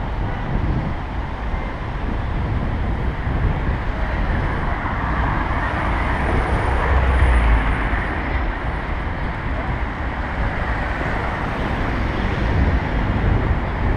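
City traffic noise heard from a moving bicycle, with a low wind rumble on the microphone that swells about halfway through.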